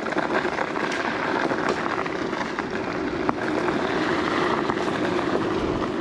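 Gotrax GX1 dual-motor electric scooter riding in turbo mode over hard-packed gravel: a steady motor hum with the noise of the tyres on the gravel, and a single sharp click a little after three seconds in.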